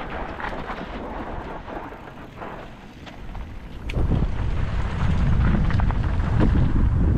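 Downhill mountain bike riding over a dirt trail: tyre noise and the bike's rattles and clicks, with wind buffeting the microphone that gets much louder about four seconds in.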